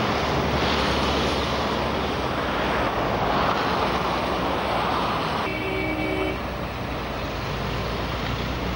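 Road traffic on a wet road: a steady hiss of tyres and engines as cars pass, with wind on the microphone. About halfway through, it switches abruptly to a quieter background with two short beeping tones.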